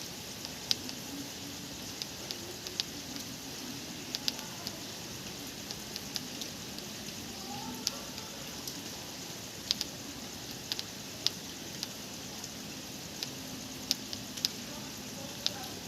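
Steady rain falling at night: a constant hiss with irregular sharp ticks of drops striking nearby surfaces.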